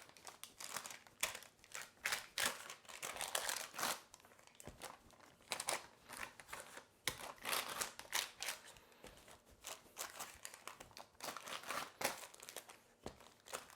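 Baking paper crinkling and rustling under a small rolling pin as shortbread dough is rolled out in a tray, in many irregular short strokes.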